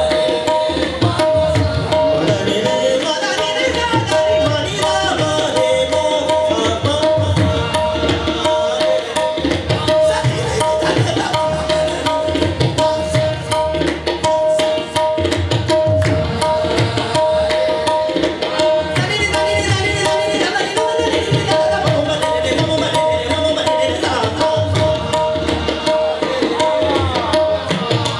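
Qawwali music: harmoniums sounding a repeated held note over a fast hand-drum beat, with voices singing melismatic lines at times.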